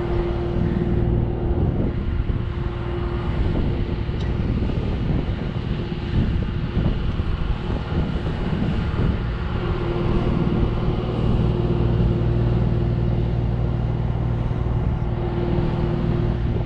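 A boat's machinery running with a steady hum under an uneven low rumble of wind on the microphone. A higher tone in the hum drops away after a few seconds and comes back about halfway through.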